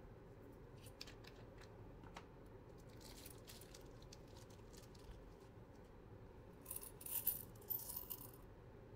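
Faint scattered clicks and light rattling of small hard objects, with a louder spell of rattling about seven to eight seconds in.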